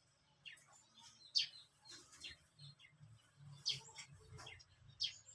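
Faint, short high chirps of small birds, each falling in pitch, repeated several times.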